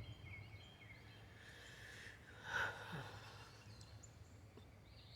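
Quiet outdoor ambience with a steady low hum and a few faint short chirps in the first second, broken about halfway through by one short, breathy puff close to the microphone, like a sigh or snort.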